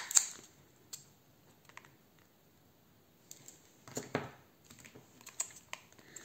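Small plastic wax-melt tubs clicking and knocking as they are handled, one set back on the stack and the next picked up: scattered sharp clicks, the loudest at the very start, with a short rustle about four seconds in and a few more clicks near the end.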